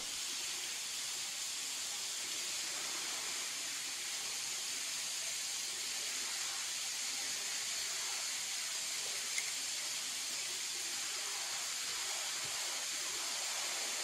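Steady, even hiss of rushing water from a waterfall.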